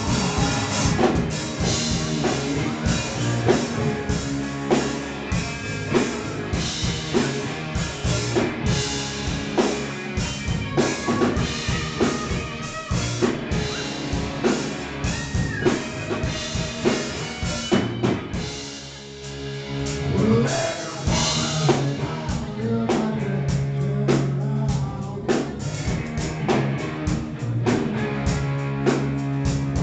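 Live rock band playing: drum kit, electric guitars and bass guitar, with a short lull about two-thirds of the way through before the full band comes back in.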